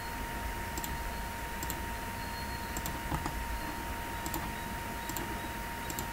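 Scattered light clicks from a computer's mouse and keys, roughly one a second at irregular spacing, over a steady faint hum and hiss.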